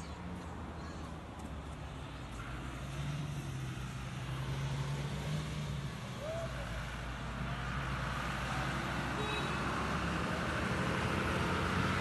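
Road traffic: a motor vehicle's engine running steadily and growing gradually louder as it nears.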